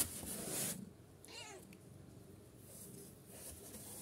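A kitten under two weeks old gives one short, thin mew about a second in, its pitch rising then falling. Before it, in the first second, comes a louder rustling from the kittens being handled on cloth.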